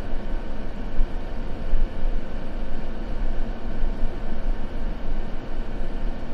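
Steady, continuous white-noise ambience, deep-toned and even, with no crackles or changes.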